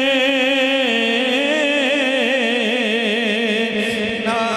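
Man singing a Punjabi naat into a microphone, holding one long melismatic note with a wavering vibrato over a steadier held lower tone.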